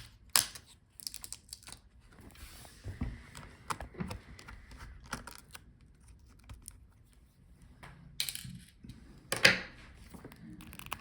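Small screws being taken out of a laptop motherboard: scattered light clicks and short scrapes of a screwdriver bit and small metal parts being handled, with the loudest click about nine and a half seconds in.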